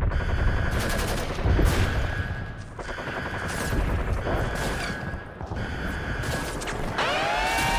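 Bursts of rapid automatic gunfire. About seven seconds in, a siren starts, rising in pitch and levelling off.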